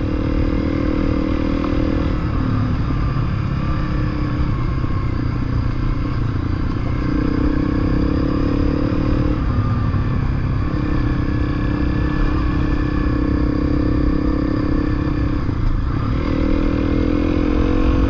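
Honda CRF250L single-cylinder four-stroke engine running under way, its note dropping and climbing several times, over a steady low rumble.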